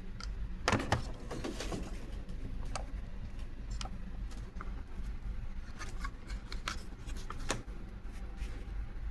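Scattered clicks and light knocks over a steady low hum, the loudest pair of clicks about a second in.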